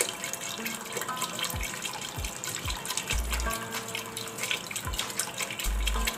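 Water pouring in a steady stream from a glass into a pot of cooking beef and masala, splashing into the liquid.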